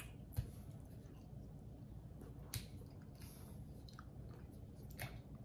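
Quiet mealtime handling sounds: three faint, sharp clicks about two seconds apart while a small sauce bottle and cutlery are handled at the plate, over low room noise.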